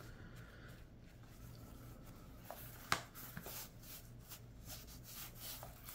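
Faint rubbing and handling sounds of fingers pressing and feeling an eye massager's soft padded lining and air bladders, with one sharper click about three seconds in.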